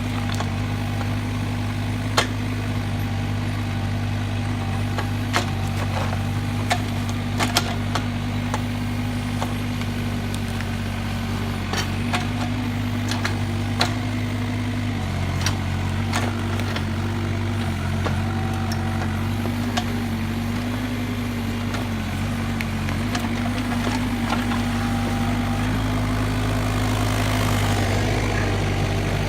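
Kubota K008-3 mini excavator's diesel engine running steadily under load, its note shifting slightly about halfway through. Scattered sharp knocks and cracks come from the machine working the oak stump and its roots.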